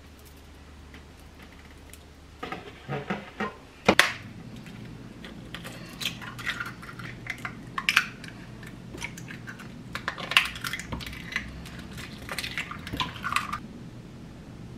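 Kitchen handling sounds: a few sharp clicks and knocks a couple of seconds in, then eggs being cracked against a bowl, their shells tapping and clicking in several short bursts.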